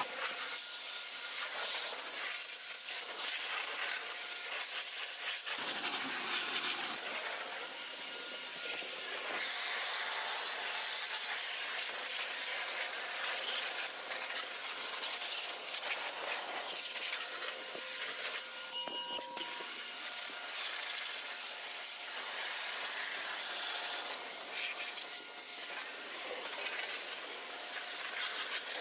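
Pressure washer jet hissing steadily as it blasts water onto a truck's tyre, wheel and bumper.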